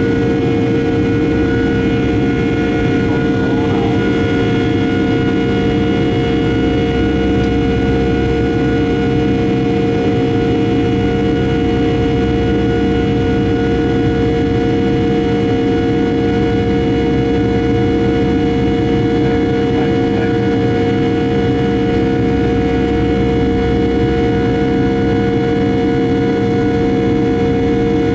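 Boeing 757-300's turbofan engines at climb power, heard from inside the cabin over the wing: a steady drone with a strong hum and several higher whining tones over a constant rush of air.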